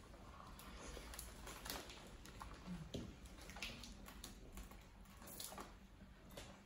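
Faint, irregular small clicks and crackles of people eating a seafood boil with their hands.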